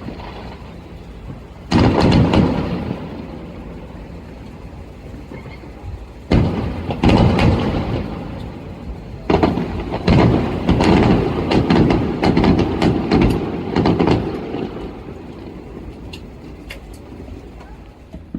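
Fireworks bursting at a distance: a string of booms, each starting suddenly and dying away over a second or two, several in quick succession in the middle, with small crackles near the end.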